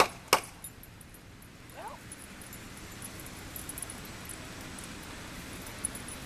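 A small dog whimpering faintly against steady outdoor background noise, with two sharp clicks right at the start.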